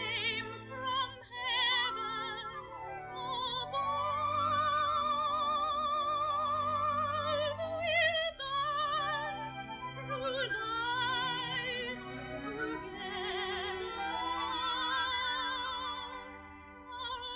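Orchestral cartoon film score, operatic in style: a melody with heavy vibrato and several sweeping slides up and down.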